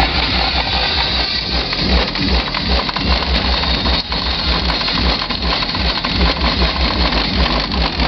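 Loud bass-heavy electronic dance music from a Ford Mondeo Mk2 estate's car stereo and subwoofer, heard from outside the car, with a pounding bass beat.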